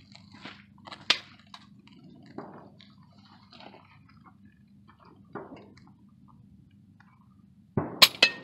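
A single sharp crack about a second in, the report of a pre-charged air rifle shot. Near the end comes a quick run of three sharp clicks and clinks close to the microphone, one ringing briefly. Faint scattered clicks and rustles sit over a steady low hum.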